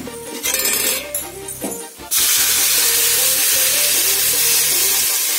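Water poured into a hot pan of vermicelli roasted in ghee, bursting into a sudden loud sizzling hiss about two seconds in that keeps going steadily as it steams.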